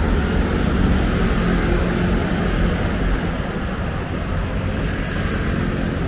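Road traffic passing close by: car engines and tyre noise in a steady rumble, a little louder in the first half.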